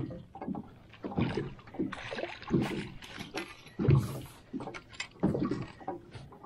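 A hooked walleye splashing at the surface beside an aluminum boat as it is scooped into a landing net, with irregular knocks and rattles against the hull; loud thumps come at the start and about four seconds in.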